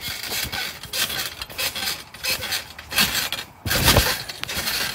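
Handling noise from a phone on a trampoline mat being jostled and moved: irregular rustles and knocks, with a heavier low thump about four seconds in.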